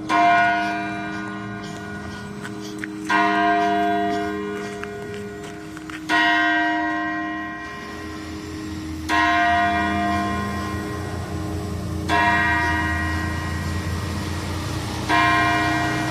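Church tower bell striking the hour at noon: six strokes, evenly spaced about three seconds apart, each ringing on and fading slowly into the next, part of the twelve strokes that count out 12 o'clock.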